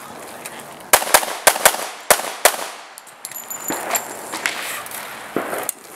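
Handgun fired in a quick string: about six sharp shots in about a second and a half, beginning about a second in, followed by a few fainter reports near the end.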